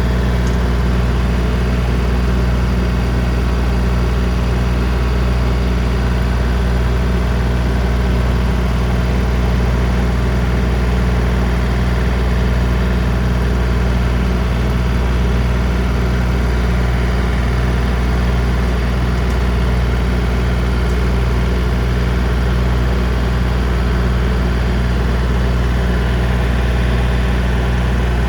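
John Deere 3025D compact tractor's diesel engine running steadily while it drives a brush hog (rotary cutter) through the PTO, in first gear low range. The drone holds one even pitch and level, with no revving or changes.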